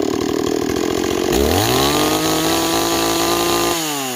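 Stihl 026 two-stroke chainsaw idling, then revved up to full throttle a little over a second in, held high for about two seconds, and dropping back toward idle near the end. The saw is running well after repair.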